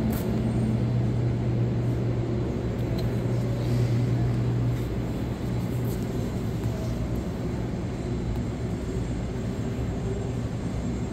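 Steady rumble of an underground subway station, with a low droning machinery hum that drops away about five seconds in.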